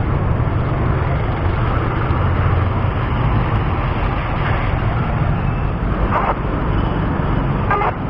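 Steady road traffic noise, cars and other motor vehicles running along a busy road, heard from a bicycle on the move, with a constant low rumble.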